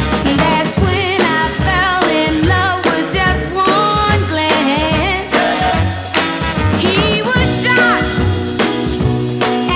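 An early-1960s-style pop and soul record playing: a wavering lead melody over a steady beat of bass and drums.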